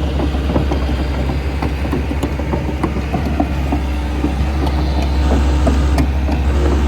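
Bobcat E145 excavator engine running steadily, with many irregular clanks and knocks of metal on broken concrete while the foundation is being broken out.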